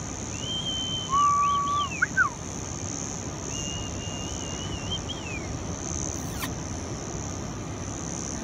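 Steady high-pitched insect buzzing, with a few short whine-like animal calls: a held note with rising flicks about a second in, the loudest part, and another held high note that slides down around four to five seconds in.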